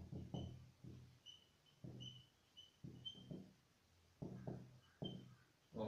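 Marker pen writing on a whiteboard: a string of faint knocks as the strokes land on the board, with short high squeaks from the marker tip.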